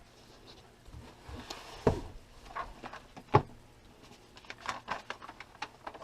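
Scattered knocks and rustling of a thick owner's manual being handled and opened, with two sharper knocks about 2 and 3.5 seconds in and a run of light clicks near the end.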